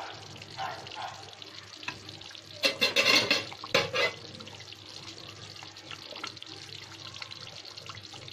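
A steel ladle stirring and lifting pieces of chicken in thick, wet kurma gravy in an aluminium pot, with a louder burst of scraping and knocking against the pot about three seconds in and a shorter one about a second later.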